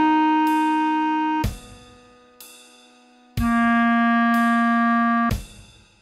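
Clarinet playing a slow melody in long held notes: one note sustained for about a second and a half, a quiet gap of about two seconds, then a lower note held for about two seconds.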